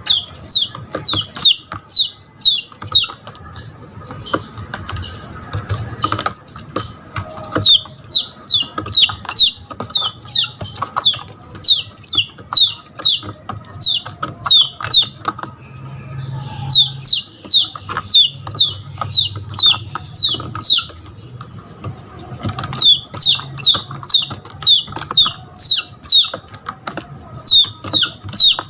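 Red junglefowl chick peeping in distress: loud, repeated short falling whistles, about two to three a second, in runs broken by brief pauses. This is the cry of a lost chick calling for its mother hen.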